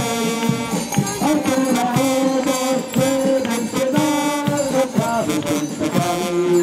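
Marching brass band playing a tune in the street, with held brass notes changing every half second or so.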